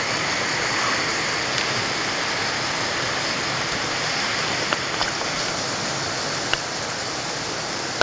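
Steady rush of a waterfall and its stream of falling water, with a few small clicks in the second half.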